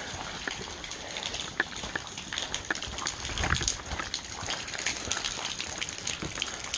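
Footsteps and rustling through wet leaf litter and low brush: irregular small crackles and scuffs, a little heavier about three and a half seconds in.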